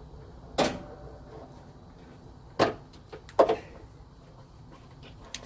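A few sharp clunks and knocks, three in all with the last the loudest, as the parking heater's electric water pump is worked loose and pulled out of its mount by hand.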